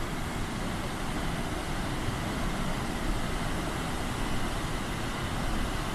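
Waterfall on the Wailuku River in flood after heavy rain: muddy runoff pouring over the falls in a steady, unbroken rush that is heaviest in the low rumble.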